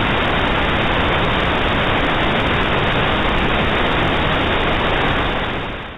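Steady radio static hiss: dead air on a weather radio after the station has gone off the air. It fades out near the end.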